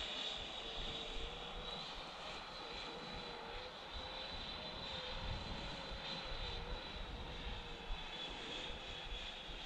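Twin 120 mm electric ducted fans of a 1:9 scale F-35B model jet whining steadily in flight at a distance. A lower tone wavers slightly beneath the high whine.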